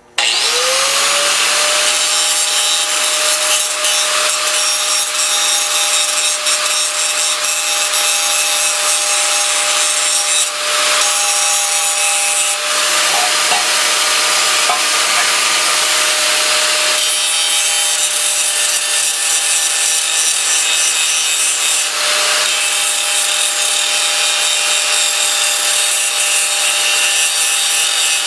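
Electric grinder spinning up with a quickly rising whine, then running steadily as it grinds steel clean in preparation for welding, the sound shifting a little as it is pressed on and eased off the metal.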